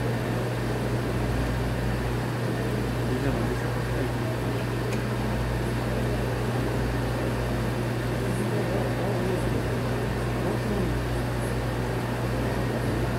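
A steady low electrical hum, unchanging throughout, with a deeper rumble beneath it.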